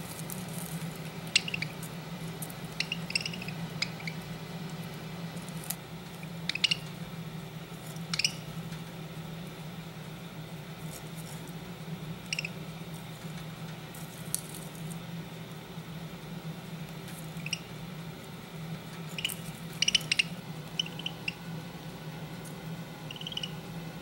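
Budgerigar making its squeaky "dolphin sound", short high chirps in scattered clusters with the busiest run about twenty seconds in, a sign that the bird is getting mad. A steady low hum lies underneath.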